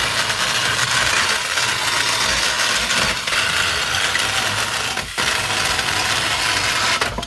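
Ryobi 18V cordless one-handed chainsaw running continuously as it cuts through pallet wood, with two brief dips, then stopping suddenly near the end.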